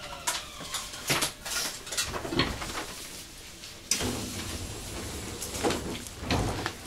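A string of irregular knocks and short clatters over a low rumble inside a Shin-Keisei 8900 series commuter train carriage.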